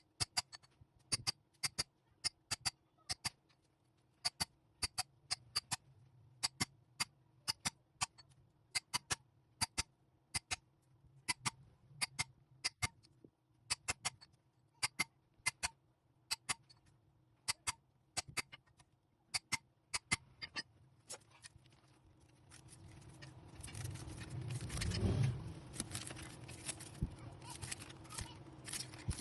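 Sharp clicks in quick pairs and threes, a few times a second, from hand tools working the copper winding of a ceiling-fan coil. About three-quarters of the way through they give way to a louder scraping and rustling as the wire is worked loose.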